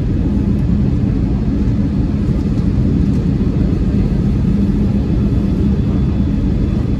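Airliner cabin noise in flight: a steady low rumble of engines and airflow with an even hum underneath, heard from inside the cabin.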